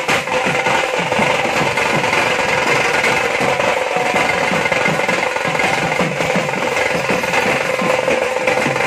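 Drum band of stick-beaten side drums and a barrel drum, with a brass gong struck alongside, playing a fast roll. The strokes run together into a dense, steady rattle.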